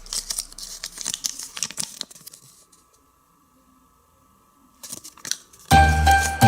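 Foil wrapper of a chocolate surprise egg crinkling and tearing as it is unwrapped, then a pause and a few more crinkles. Loud music with a steady beat starts near the end and is the loudest sound.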